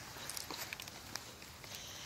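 Two dogs scuffling on grass in a tug of war over a stick: faint, scattered scuffs and ticks of paws and bodies.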